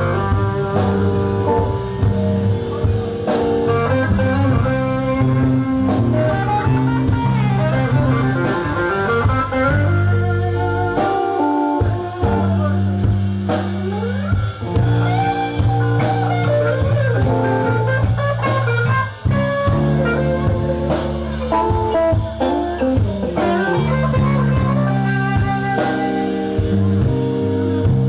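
Live band playing a slow blues: electric guitar lead with bent, gliding notes over bass guitar and a drum kit.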